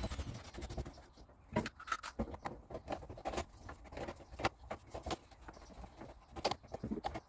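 White plastic sink waste pipes and trap being handled and pushed together: scattered light clicks and knocks of plastic on plastic.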